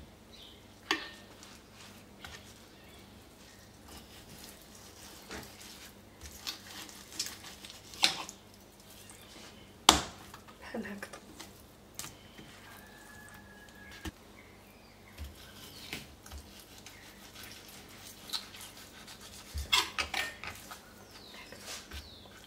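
A kitchen knife tapping and clicking on a plastic cutting board as raw chicken breasts are sliced in half and moved about, with soft handling of the meat. The taps are scattered, the sharpest about ten seconds in and a cluster of them near the end.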